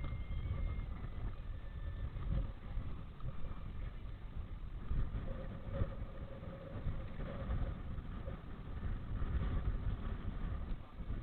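Strong wind buffeting the microphone: an uneven low rumble that rises and falls in gusts.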